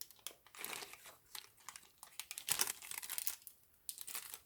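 Glassine bag crackling and crinkling in quick irregular bursts as it is handled.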